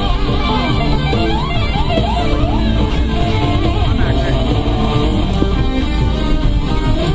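Background music led by guitar, steady throughout.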